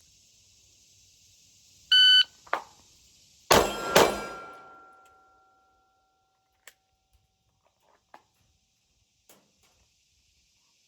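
A shot timer beeps once, and about a second and a half later a handgun is drawn from the holster and fired twice, the shots about half a second apart, with a ringing tone trailing off after them. A faint steady patter of rain on a tin roof sits underneath.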